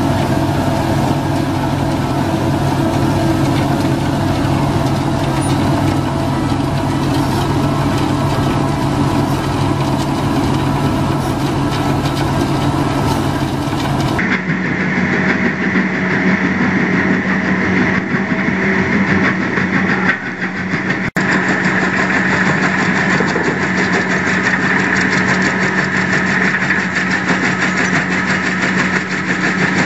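Heavy vehicle engine running steadily. About halfway through the sound cuts to another clip: a steady low hum with a high, continuous squeal over it.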